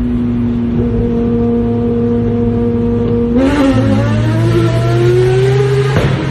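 A performance car engine held at steady revs, then about three seconds in it climbs steadily in pitch as the car accelerates.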